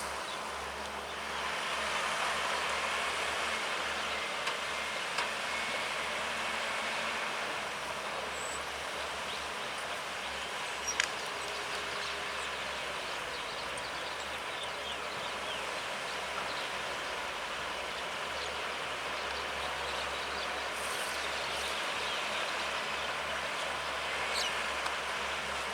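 Sumitomo SH210 long-reach excavator's diesel engine running steadily under work, with one sharp click about halfway through.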